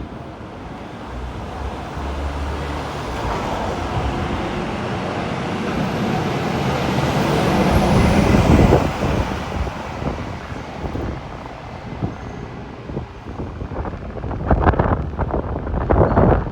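Strong wind buffeting the microphone over city street traffic. The noise swells to its loudest about eight seconds in as a vehicle passes, then eases, with gusty rumbles returning near the end.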